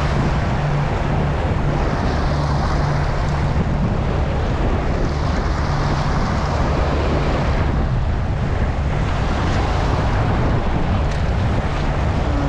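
Steady wind buffeting the microphone over the wash of sea waves, with a low steady hum underneath.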